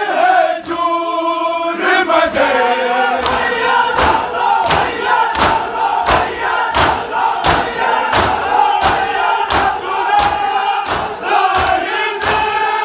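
A large crowd of men chanting a Muharram nauha in unison, with sharp slaps of hands on chests (matam) beating a steady rhythm of about three strokes every two seconds, starting about three seconds in.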